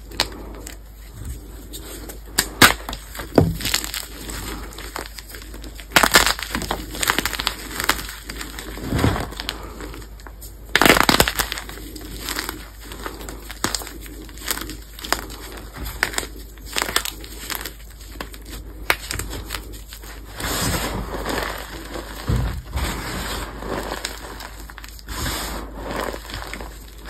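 Pasted gym chalk blocks crushed and crumbled by hand: dry crunching and crackling as the hard chalk breaks between the fingers, with a softer powdery rustle of crumbs. The crunches come at irregular intervals, the loudest cluster about eleven seconds in.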